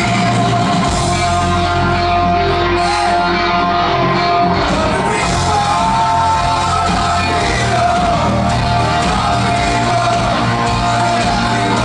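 Hard rock band playing live and loud, with electric guitars and keyboard.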